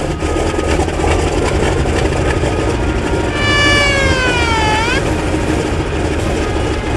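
Antonov An-2's nine-cylinder radial engine running with a loud, dense rumble. About three seconds in, a high whine slides down in pitch for under two seconds, then sweeps sharply up and cuts off.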